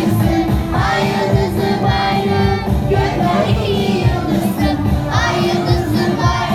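A song with a steady drum beat, sung by a group of children's voices.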